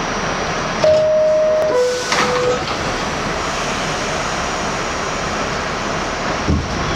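R68 subway car's two-tone door chime, a held high note then a lower one, about a second in, with the doors knocking shut as it sounds. Under it runs the car's steady noise, and a low thump comes near the end.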